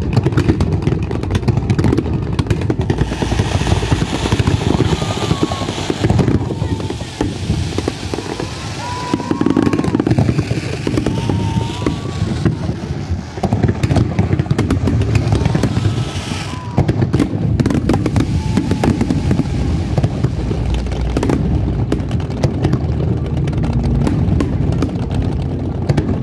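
Fireworks going off in quick succession: many sharp bangs and crackles from aerial shells and low fountain shots over a dense deep rumble, with a crackling hiss swelling now and then.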